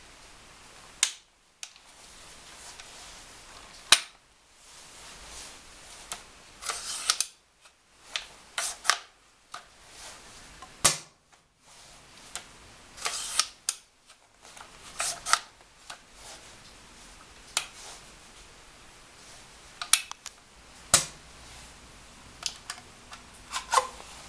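ARES MS338 airsoft bolt-action sniper rifle being handled and worked: sharp single snaps a few seconds apart, with short runs of clattering mechanical clicks and clacks between them.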